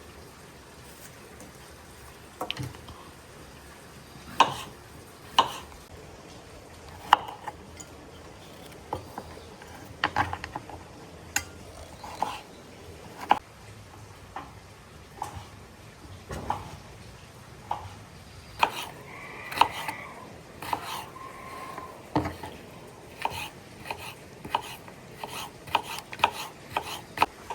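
Kitchen utensil stirring, knocking and scraping against cookware, with sharp irregular clinks about once or twice a second. Around nineteen seconds in, a clink rings briefly.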